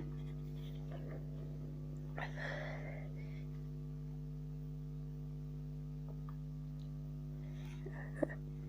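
A person breathing between sneezes: one short, noisy breath about two seconds in, over a steady low hum, with a faint click near the end.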